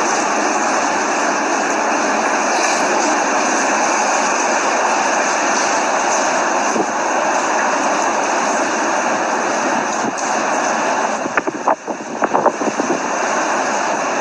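Hurricane Irma's wind blowing hard as a steady, loud rushing noise. Near the end come a few short knocks while the wind briefly eases.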